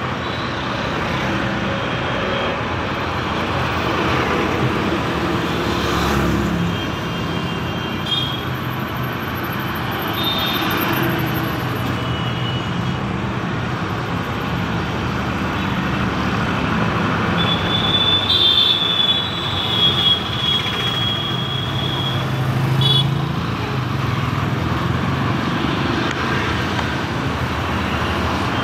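Road traffic passing on a city street: motorcycles, scooters and auto-rickshaws running by with a steady engine hum and tyre noise. A few thin high tones come and go over it, the longest held for several seconds about two-thirds of the way in.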